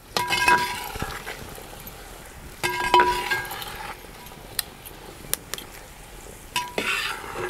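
Steel ladle scraping and clinking against a large aluminium pot, stirring shallots, green chillies and ginger-garlic paste frying in oil until the paste's raw smell is gone. Three strokes, each with a short metallic ring: right at the start, about three seconds in, and near the end, over a steady faint sizzle.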